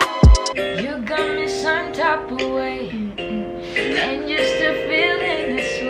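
Music: a woman singing a pop song over a plucked acoustic guitar accompaniment. A different, drum-backed track cuts off just as it begins.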